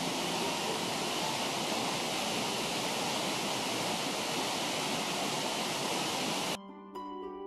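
Waterfall: a steady, dense rush of falling water. About six and a half seconds in it cuts off abruptly and plucked harp-like music begins.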